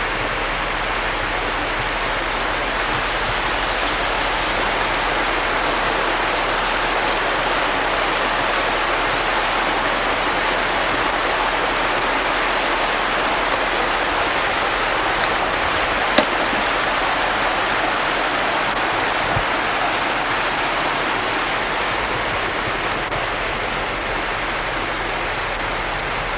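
Steady, even rushing noise with a faint low hum underneath.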